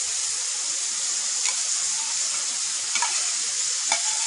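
Water spinach stir-frying in a hot wok, sizzling steadily, with a few short clicks about midway and near the end.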